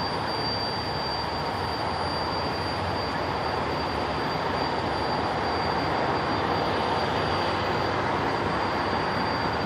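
Jeep TJ Wrangler driving, with steady road and engine noise and a thin, steady high-pitched whistle over it. The whistle is one that only shows up after several minutes at highway speed, from a cause the owner has not found.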